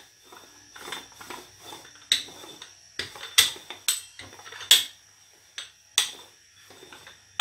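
Metal rolling pin rolling soft shortcrust pastry on a wooden pastry board: irregular sharp knocks and clacks as the pin is pushed back and forth, each with a brief metallic ring.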